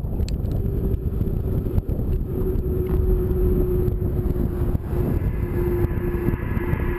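Wind buffeting and road rumble on a riding cyclist's camera microphone, with a steady hum running through.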